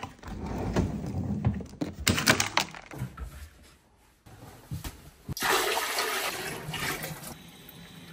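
Water rushing and gurgling in two spells: the first low, the second brighter and hissier, with a quick run of knocks between them.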